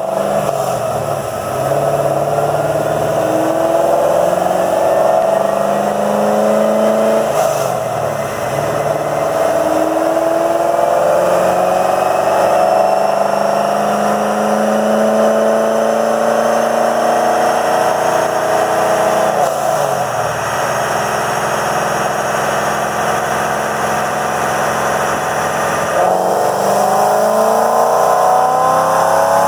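2002 Corvette Z06's LS6 V8 running on a chassis dynamometer during tuning, with the engine and rollers climbing slowly in pitch through a long pull. About 26 seconds in the pitch drops and starts climbing again.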